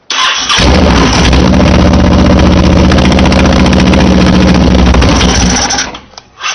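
Honda VTX 1300 V-twin engine turned over by its starter, catching on starting fluid and running loudly for about five seconds before dying away near the end. It won't keep running because the carburetor is still dry of fuel.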